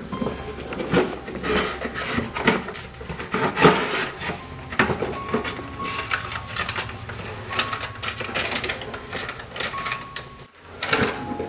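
Irregular rustles, taps and scrapes of a small cardboard box being handled and a paper envelope being taken out of it, over a low steady hum.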